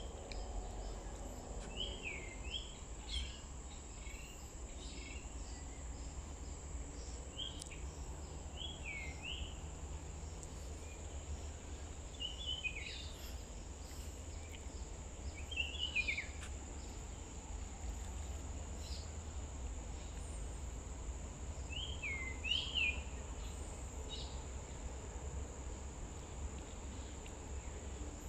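A steady, high-pitched insect drone, with a bird giving short downward-sweeping calls in small groups every few seconds, over a constant low rumble.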